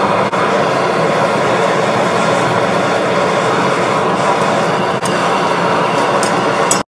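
Propane forge burner running with a steady roar. A few light metallic clicks near the end as steel tongs handle the hot blade, then the sound cuts off suddenly.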